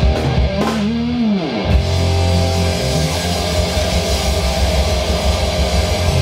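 Live rock band playing: electric guitar and drum kit, with one note that swoops up and then slides down about a second in.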